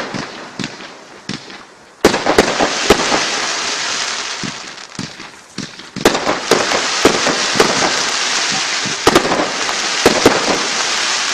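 Consumer fireworks from a display barrage firing: sharp bangs of shells bursting, each volley followed by a dense crackling that fills several seconds. Fresh volleys start suddenly about two and six seconds in, with a brief lull between them.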